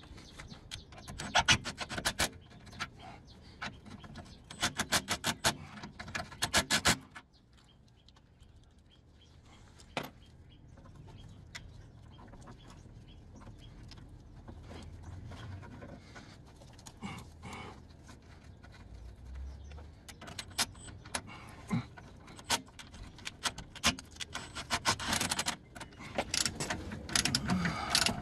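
Hand ratchet clicking in quick runs as the nuts on a front stabilizer bar bush bracket are run down. There are two runs in the first seven seconds and more from about twenty seconds in, with faint metal handling noise between them.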